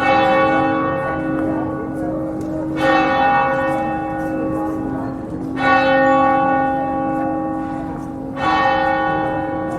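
Church bell tolling, struck four times about three seconds apart, each stroke ringing on and fading slowly, with its low hum carrying under the next stroke.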